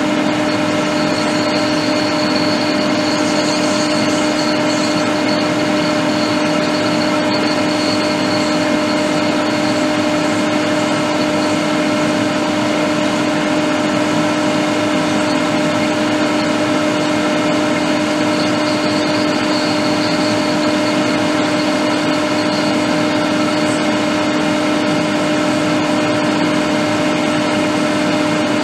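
Hot air rework station blowing steadily, a constant hiss with an even low hum, as it reflows a replacement Tristar 1612A1 charging IC onto an iPad mini 5 logic board.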